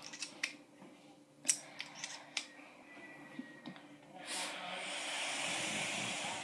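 A few sharp clicks as a handheld vape device is handled, then from about four seconds in a steady loud hiss of a long draw of air through a vape.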